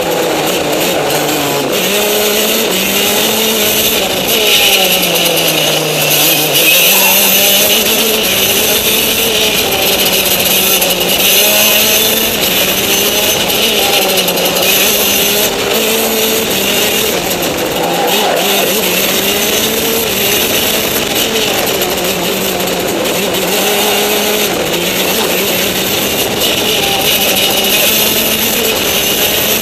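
Racing kart engine heard from on board, running hard with its pitch falling and rising as the kart slows and accelerates around the circuit. It dips twice in the first seven seconds, then wavers up and down, over a steady rushing hiss.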